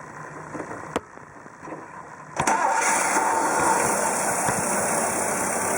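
A 1958 Chevrolet Bel Air's 283 V8 cold-starting after sitting overnight. A click comes about a second in, then the engine catches about two and a half seconds in and runs steadily.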